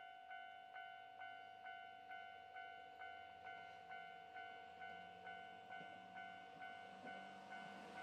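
Japanese railway level-crossing warning bell ringing its steady "kan-kan", a clanging tone struck a little over twice a second: the signal that a train is approaching the crossing.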